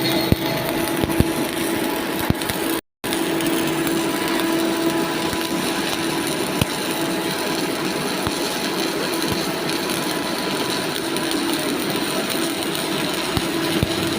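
Arc welding on pipe: a steady crackling hiss with scattered sharp pops and a steady hum underneath. It breaks off into silence for a moment about three seconds in, then carries on.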